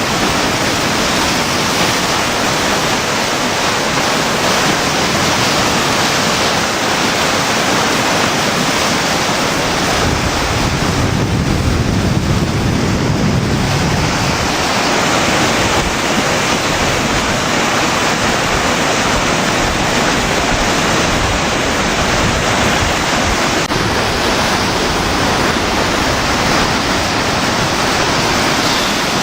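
Floodwater of the Maumee River rushing over and below Providence Dam: a steady, loud wash of fast-moving water, with a gust of wind buffeting the microphone about ten seconds in.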